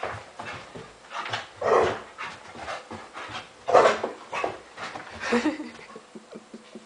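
Two dogs, a poodle and a pit bull, panting and huffing in rough play, with short scuffling sounds and two louder vocal bursts about two and four seconds in.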